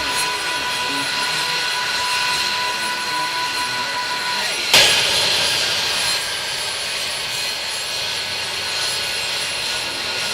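Jet engine running steadily at idle: a high hiss with a thin whine. One whine tone drops out about halfway through, followed by a single sharp click.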